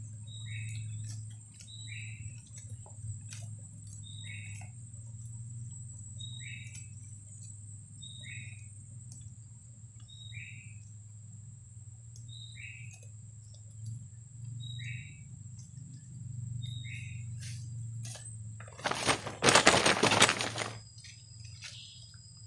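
A bird repeating a short two-note call, a brief high note followed by a lower falling one, about every two seconds, nine times, over a steady high-pitched tone and a low hum. Near the end a loud burst of noise lasts about a second and a half.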